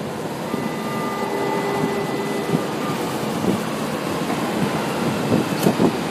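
São Paulo Metro train at the platform. A steady warning tone sounds for about two seconds, the doors slide shut, and the train starts to pull out near the end, all over the steady rumble of the station.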